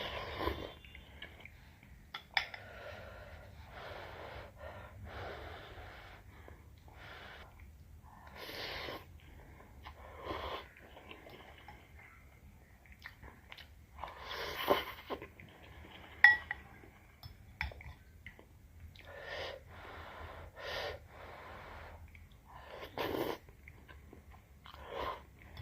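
A person eating soupy noodles: repeated short slurps and breaths, with chewing in between. A few sharp clicks are heard, one about two seconds in and two more near the middle.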